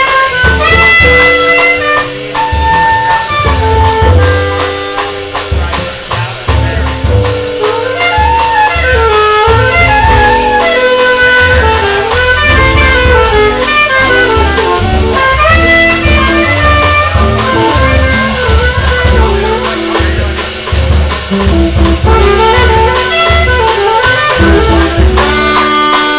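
Live small-group jazz: an alto saxophone plays a fast, winding melodic line over plucked double bass and drum kit.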